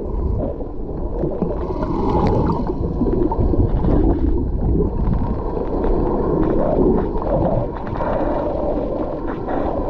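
Muffled underwater rushing and gurgling of water picked up by a submerged camera, with bubbles churned up by snorkelers' fin kicks.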